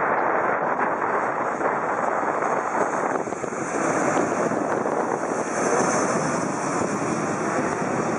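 Boeing 737 twin-jet airliner on landing approach, gear down, passing low overhead: a steady jet rush with a high whine that builds and is strongest about six seconds in.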